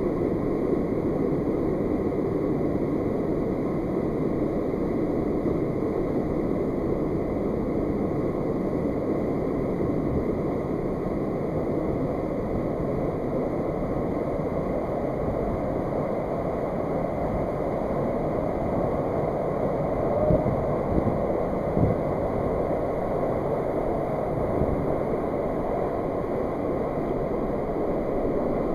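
Steady low rush of mountain-stream water cascading down a narrow rock canyon, with a couple of brief louder bumps about two-thirds of the way through.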